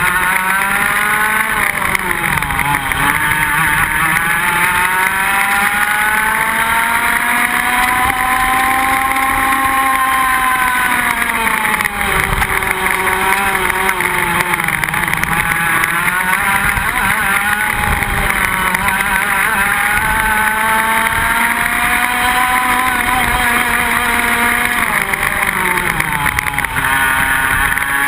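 Iame X30 125 cc two-stroke kart engines at racing speed, their pitch swinging with the revs. The revs climb steadily for about ten seconds, drop, climb again for a long stretch and fall off near the end.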